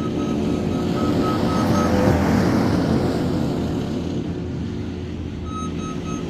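New Holland C232 compact track loader's diesel engine running under load, with its reversing alarm beeping rapidly while it backs up. The beeping stops about two seconds in as the engine grows louder driving forward, and resumes near the end.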